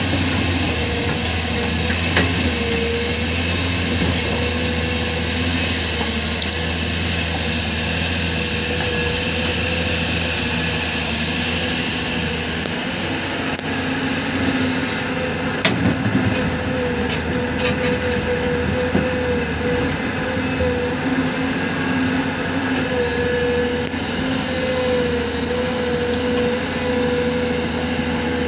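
Excavator's diesel engine running steadily under work, with a wavering whine and a few sharp knocks along the way.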